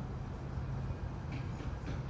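A steady low motor rumble with a hum that fades about a second in, and a few short, faint high sounds near the end.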